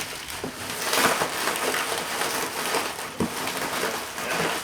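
Plastic bubble wrap being handled and pressed into a cardboard box, rustling and crackling unevenly with a scatter of small clicks.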